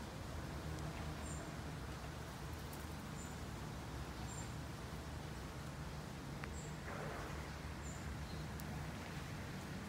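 Outdoor ambience: a steady low rumble with short, high, thin bird chirps every second or two, and a brief rustle about seven seconds in.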